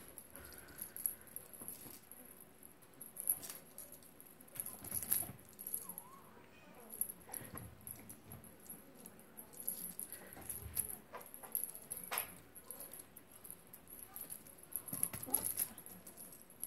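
Exotic shorthair kitten playing with a wand toy, its paws and body patting, scrabbling and landing on a quilted cover: scattered soft thumps, rustles and clicks.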